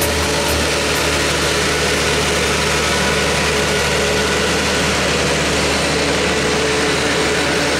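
Ursus C-360 tractor's four-cylinder diesel engine running steadily while it pulls a manure spreader, whose rear beaters are throwing out manure.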